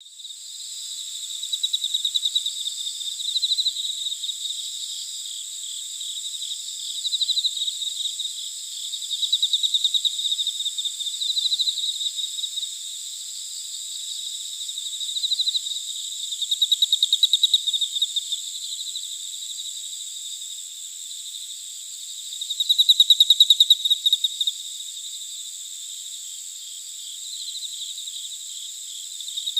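Chorus of insects: a steady high buzz with rapid pulsing chirps that swell and fade every few seconds, starting abruptly after silence.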